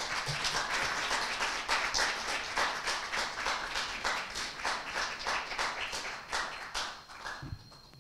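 A small audience applauding, many hands clapping at once; the applause thins out and dies away near the end.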